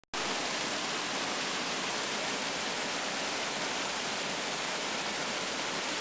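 Waterfall pouring down right at the microphone: a loud, steady rush of falling water.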